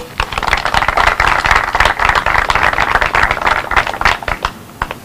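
Small audience applauding, starting right away and dying out near the end.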